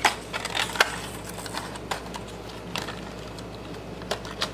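Scattered light clicks and taps of a fishing lure's plastic packaging being handled, sharpest about a second in.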